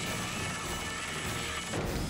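Cartoon fight sound effects: energy blasts and crashing impacts over loud action background music.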